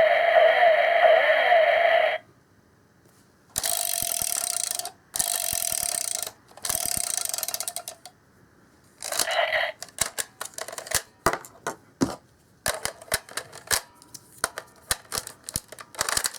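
A Kyoryuger Dino Chaser toy playing electronic sound effects from its small speaker for the Zyudenchi No.11 battery. One effect ends about two seconds in, three similar short blasts follow after a pause, and then comes a quick run of plastic clicks mixed with brief bursts of sound.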